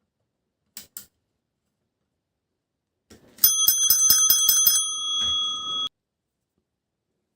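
A small metal bell rung rapidly, about six strikes a second, its ring holding on for about a second after the strikes before cutting off abruptly. Two light clicks come shortly before it.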